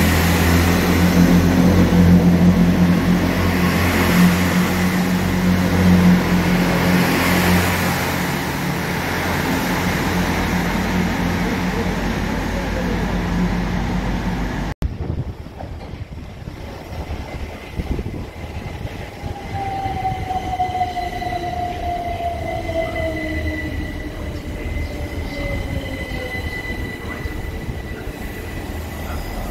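A Great Western Railway diesel multiple unit passing close along the platform, its engines humming steadily under heavy rolling noise. About halfway through it gives way to a Southern Class 377 Electrostar electric unit running in, its traction motors whining in a tone that falls steadily as it brakes towards a stop.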